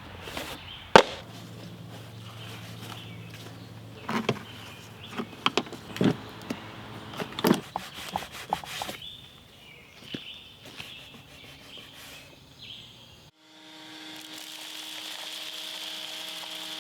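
Scattered knocks, clatter and rubbing, as from handling a shop vacuum and its filter. About thirteen seconds in, a steady motor hum with a hiss starts abruptly: a shop vacuum running.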